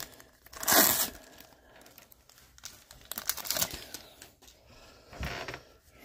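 Foil wrapper of a Topps baseball card pack crinkling and tearing as the pack is opened and the cards are slid out. The loudest crinkle comes about a second in, with softer rustles of wrapper and cards after it.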